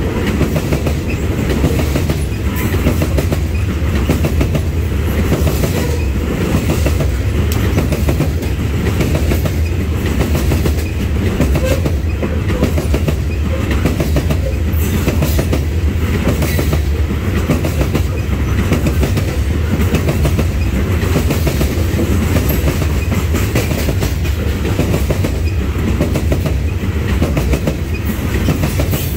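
Loaded coal hopper cars of a freight train rolling past close by: a steady, heavy rumble and clatter of steel wheels on the rails.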